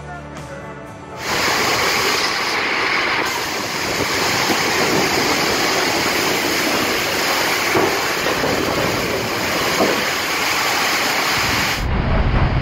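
Squall of torrential, wind-driven rain, a dense steady hiss that starts suddenly just over a second in, with faint music fading out before it. Near the end it gives way to gusty wind buffeting the microphone.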